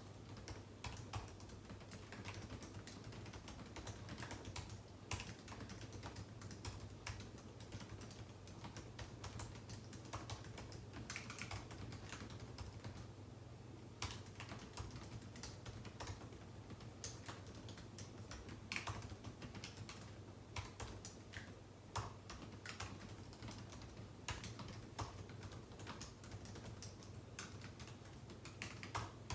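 Typing on a computer keyboard: irregular runs of keystroke clicks with short pauses between them, over a low steady hum.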